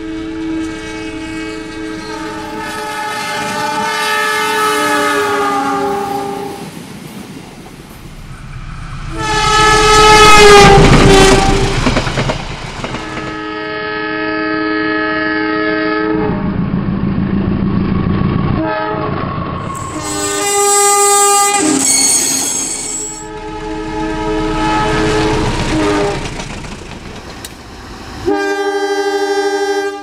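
A series of multi-tone Indonesian diesel locomotive horn blasts, one after another, sounded as the Semboyan 35 signal. Several drop in pitch as the locomotive passes. Under some blasts runs the rumble and rail clatter of the passing train.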